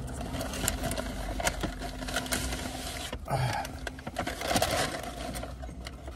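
Crumpled brown paper takeout bag crinkling and rustling as it is handled and a foam takeout container is pulled out of it: a run of irregular crackles over a low steady hum.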